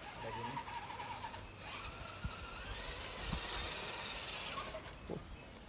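Small electric motor of a radio-controlled car whining as it is driven, its pitch wavering and then gliding up and down with the throttle.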